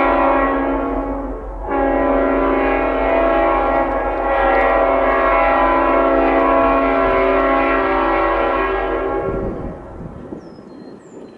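Diesel freight locomotive's air horn blowing a long, steady chord that breaks off briefly about a second and a half in, then sounds again until it cuts off about nine seconds in. A low rumble of the approaching train follows.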